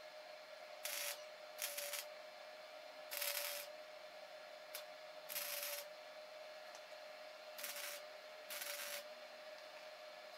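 Wire-feed welder laying short tack welds on steel brackets: six brief crackling bursts of arc, each about half a second or less, with pauses between, over a steady faint hum.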